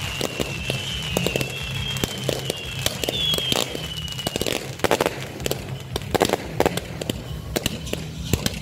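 Ground-fired firework fountains going off with dense crackling pops and snaps. A thin high whistle wavers and slowly falls in pitch until about halfway through, then stops.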